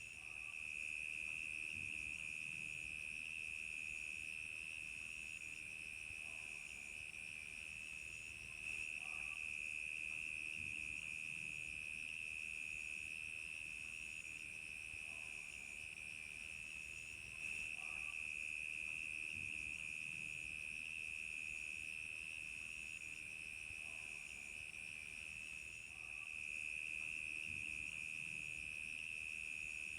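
Crickets chirping in a continuous night chorus: a steady, high-pitched trill, with a fainter, slower pulsing chirp above it.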